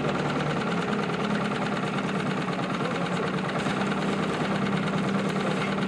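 Small outboard motor running steadily at a constant speed, an even hum with a fast rattle.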